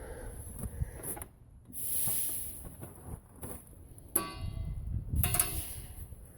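Metal scraping and clicking of drum brake hardware being worked by hand with a tool, with a sharp metallic clink about four seconds in that rings briefly.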